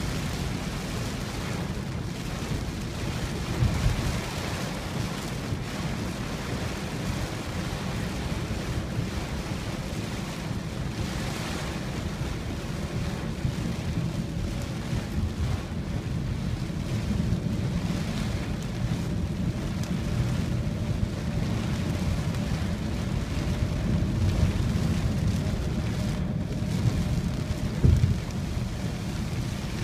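Heavy rain beating on a car's roof and windshield, heard from inside the moving car, over a deep steady rumble of the car on the flooded road. A couple of louder low thumps stand out, about four seconds in and near the end.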